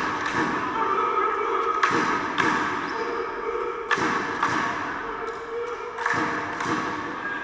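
Volleyball bouncing on a sports hall floor: a run of thuds, mostly in pairs about half a second apart, each echoing through the hall, over players' voices.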